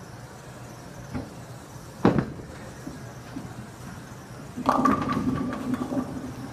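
Bowling ball rolling down a wooden lane and crashing into the pins about four and a half seconds in, a loud clatter of tumbling pins lasting over a second. A single sharp knock about two seconds in.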